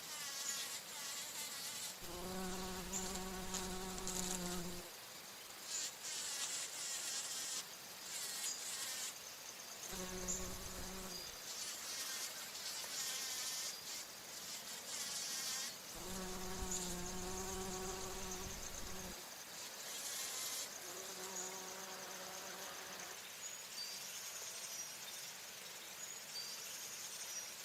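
Bumblebee buzzing close by in flight, coming and going in several passes. Each pass is a steady, even-pitched hum lasting one to three seconds, with quieter stretches between.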